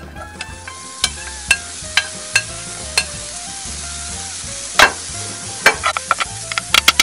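Diced cucumber sizzling in a dry frying pan over low heat with no oil, its moisture cooking off, while a wooden spoon clicks and scrapes against the pan. The clicks come faster near the end.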